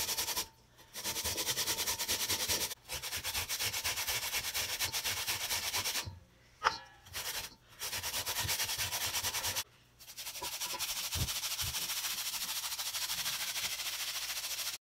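Peeled raw potatoes grated by hand on a plastic perforated grater: rapid, even rasping strokes, broken by a few short pauses and one louder knock midway, then cutting off suddenly near the end.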